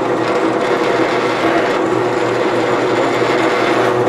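Benchtop drill press running steadily with a motor hum while drilling a rivet hole through a wooden knife handle.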